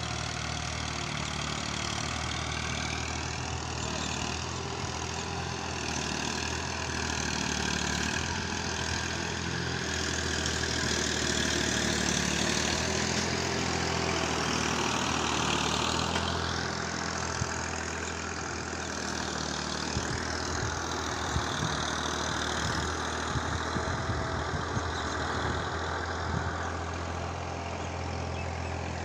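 Toy mini tractor running steadily with an engine-like drone as it pulls a loaded trolley, a little louder around the middle, with a few light clicks in the second half.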